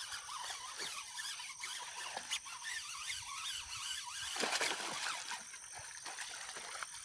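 Faint sloshing and splashing in shallow water as a hooked traíra (wolf fish) is pulled toward the bank, a little louder about four and a half seconds in.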